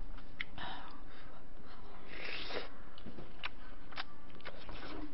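Close-miked eating sounds: chewing and mouth noises, with several short sharp clicks and a short breathy noise about two seconds in.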